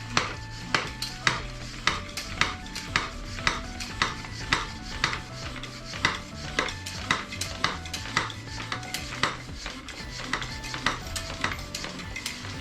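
Background music with a steady clicking beat, about two sharp clicks a second, under short held notes that change pitch.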